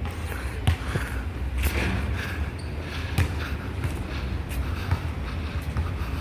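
Ceiling fan and exhaust fan running with a steady low hum, over scattered knocks and thumps.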